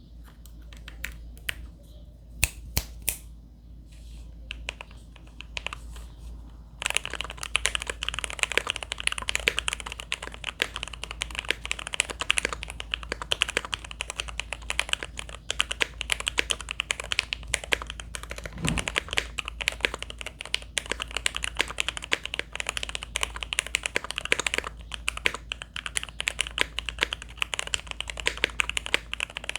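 Alpine65 gasket-mount mechanical keyboard with lubed and filmed Lavender switches on a POM plate and GMK keycaps being typed on: a few separate keystrokes at first, then steady fast typing from about seven seconds in. The keystrokes have a poppy, not plasticky, sound, muted by two layers of case foam.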